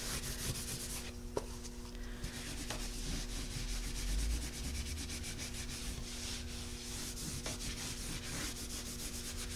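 Paper towel rubbing back and forth over a raised, textured painted frame in quick repeated strokes, wiping dark wax off the high spots with clear wax.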